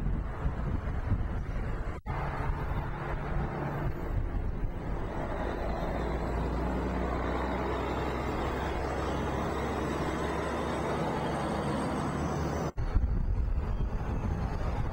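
Steady rumble of vehicle engines and road traffic, with some steady low engine tones. The sound cuts out for an instant twice, about two seconds in and near the end, changing character each time.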